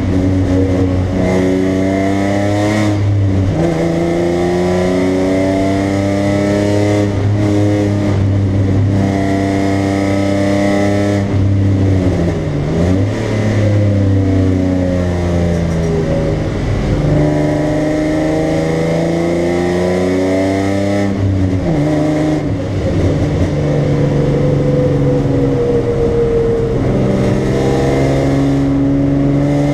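BMW 325i's inline-six engine under hard track driving, heard from inside the cabin: the engine note climbs and falls in pitch as the car accelerates, brakes and shifts gears, with sharp pitch drops at gear changes about 3, 13 and 21 seconds in.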